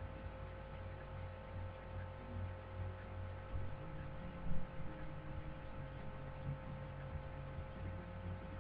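Steady electrical hum from the recording setup, several fixed tones held throughout, over a faint uneven low rumble, with one soft bump about four and a half seconds in.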